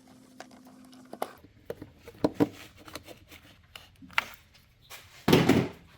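Small clicks and taps of a battery terminal bolt and cable clamp being worked loose by hand, with a single loud, brief thump about five seconds in.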